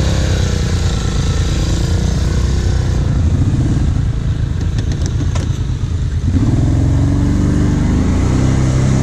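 Quad bike (ATV) engines running on a dirt track. The nearer engine revs up about six seconds in and then holds a higher, steady pitch, with a few light clicks and rattles just before.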